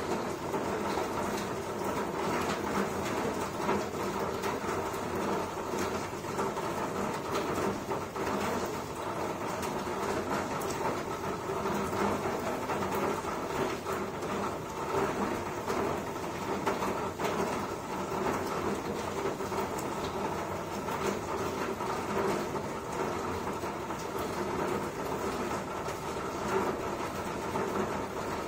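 Steady rain: a continuous dense hiss with many small ticks at an unchanging level.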